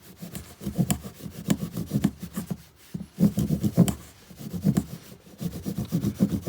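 Saw teeth on the spine of a Broc Tracker knife cutting a groove into green wood: quick back-and-forth rasping strokes, about three or four a second, with a short pause about three seconds in.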